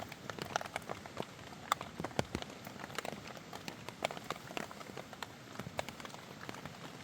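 Steady rain, with many irregular drips and taps over a continuous hiss.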